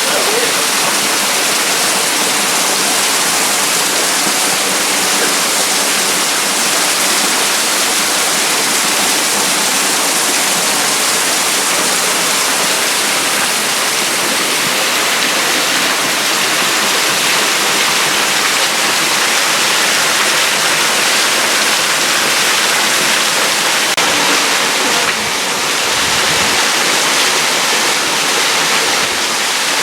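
Waterfall pouring steadily: a constant, loud rush of falling and splashing water.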